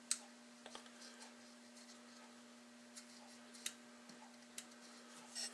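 A few faint, scattered small metal clicks and taps as a feeler gauge is worked between the engine's breaker points to set a 20-thou gap, over a low steady hum.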